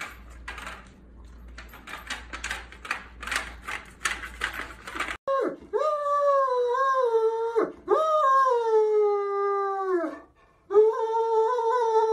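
Great Dane howling: three long, drawn-out howls starting about five seconds in, the first two sliding down in pitch at the end. Before them comes a run of short scratchy noises.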